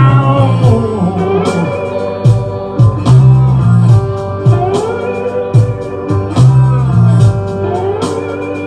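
Live blues band playing: a repeating bass line and steady drum hits under a lead line of bending, sliding notes, with no clear singing.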